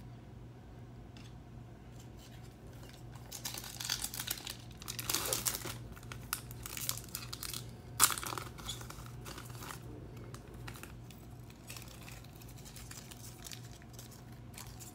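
Foil wrapper of a Topps Chrome trading-card pack crinkling and tearing as it is ripped open by hand, with the sharpest rip about eight seconds in. A low steady hum runs underneath.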